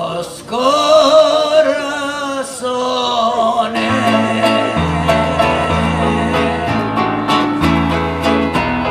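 Live music from an acoustic guitar and an electric keyboard, with a man singing a long, wavering held note near the start. From about four seconds in, the keyboard adds a steady bass line under the chords while the guitar keeps a regular strummed rhythm.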